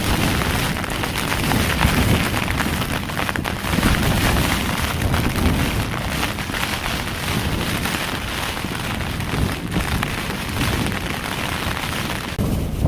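Heavy rain pelting a tent's flysheet in strong wind: a dense, loud patter of drops on the fabric that holds throughout and shifts near the end.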